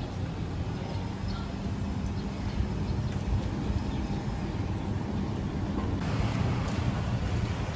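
Street traffic ambience: a steady low rumble of engines and passing road traffic, with some wind on the microphone.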